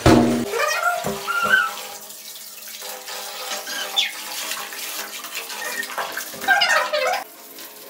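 Tap water running onto a tiled bathroom floor, with a sharp knock right at the start. Short wavering high-pitched sounds come twice, about half a second in and again near the end.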